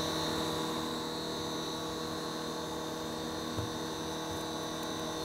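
Steady electrical hum made of several constant tones, with one soft knock about three and a half seconds in.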